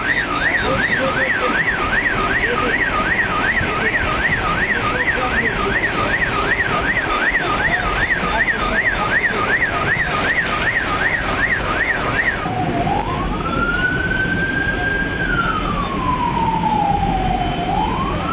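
Emergency vehicle siren sounding a fast warble, about two rises and falls a second. About twelve seconds in it switches to a slow wail that climbs, holds high, sinks and begins to climb again near the end.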